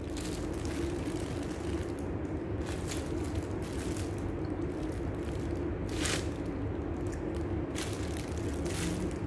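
A plastic bag crinkles in short bursts a few times as soft bread held in it is bitten and chewed, over a steady low hum.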